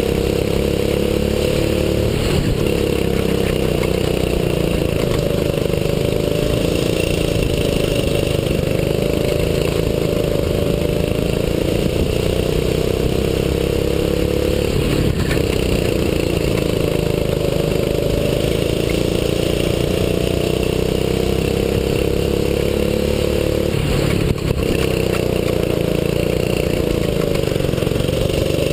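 Onboard sound of a 6.5 hp rental kart's single-cylinder four-stroke engine at racing speed. The revs climb slowly along the straights and drop sharply three times as the kart slows for corners. There is a brief knock late on.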